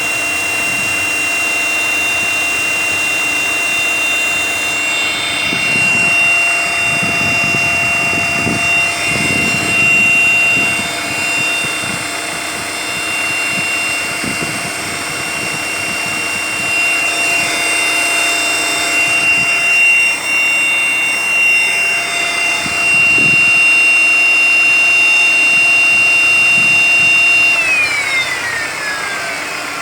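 Secondary air pump on a Skoda Octavia A5 1.6 MPI giving a steady high whistle over the engine's idle, the whistle that appears after each start in cold weather. Near the end the whistle falls away in a downward glide.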